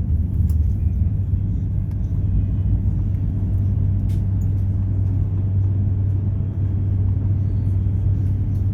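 Steady low rumble of an Airbus A350's cabin as the airliner taxis before takeoff, its engines running at low power.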